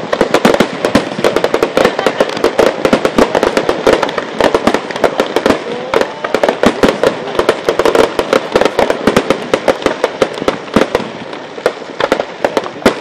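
Fireworks display: a dense, continuous barrage of sharp bangs and crackles, many per second, from aerial shells bursting and ground-fired effects launching.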